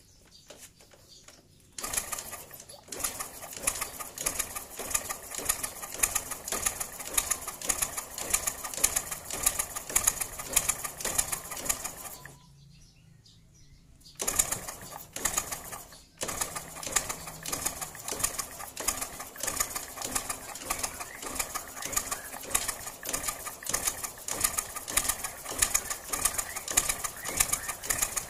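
Yamaha Jupiter single-cylinder four-stroke engine being cranked over with its spark plug removed, turning freely in a fast run of even pulses. This is a check that oil now reaches the cylinder head after a blocked oil passage was cleared. The cranking stops for about two seconds near the middle, then starts again.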